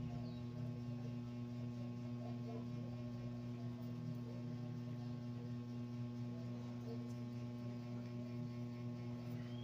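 A steady low hum that holds one pitch without change, over a faint hiss; no mooing is heard.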